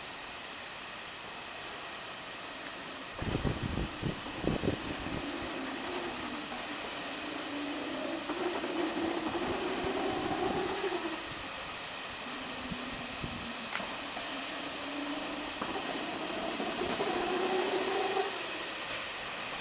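Cardboard cartons rolling along a gravity roller conveyor, the rollers giving a wavering rumbling hum as the boxes pass, with a few knocks about three to five seconds in as boxes are set down onto it. A steady hiss sits under it all.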